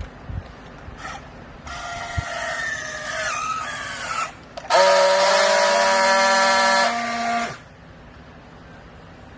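Textile baler's hydraulic system straining under load: a hissing whine whose pitch sags slightly, then, after a short break, a louder steady multi-tone whine with hiss that lasts about three seconds and cuts off sharply.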